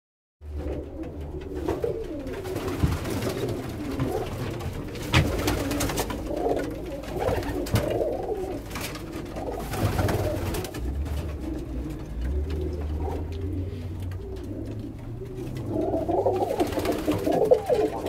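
Many tippler pigeons cooing together in a small loft, overlapping throaty coos throughout that grow louder near the end. A few sharp clicks and a steady low hum underneath.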